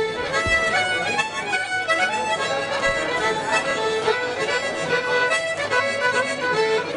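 Music: a tune of held notes moving in steps, with several notes sounding together.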